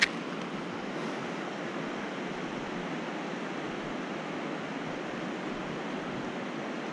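Steady, even rush of a fast-flowing mountain river, with a single brief click at the very start.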